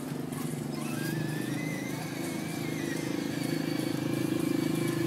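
Hard plastic wheels of a toddler's ride-on toy car rolling over tiled paving, a steady rattling rumble, with a thin high wavering whine above it.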